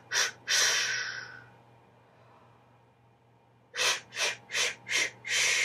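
A singer breathing out in hissing pulses on a voiceless consonant, as a breath-support exercise. There is one short hiss and then a longer one that trails off, a pause of about two seconds, then four quick hisses about three a second and a longer sustained hiss near the end.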